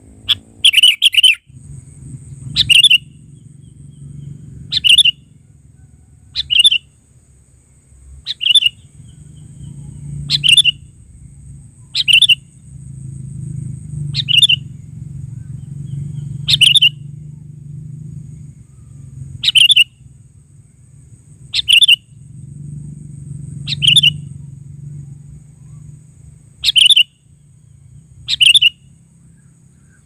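Sooty-headed bulbul (kutilang) calling persistently: short, loud calls about every two seconds, some of them doubled.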